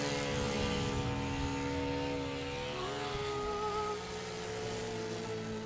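Radio-controlled model plane's ASP FS52AR four-stroke glow engine and propeller buzzing in flight overhead, fading as the plane moves away. Background music plays alongside.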